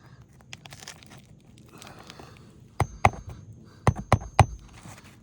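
A small metal pry bar working under asphalt roof shingles to separate them: a handful of sharp clicks and snaps in the second half, several close together, some followed by a brief, high metallic ring.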